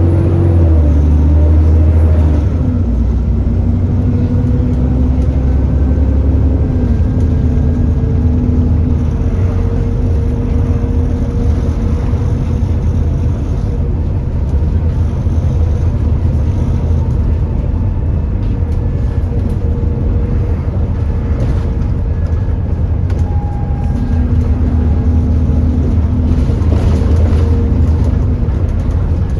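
Alexander Dennis Enviro400 double-decker bus running, with an engine note that shifts as it drives. Over it is a loud, steady whine from the radiator cooling fan, the 'hoover', which runs hard because the engine is overheating.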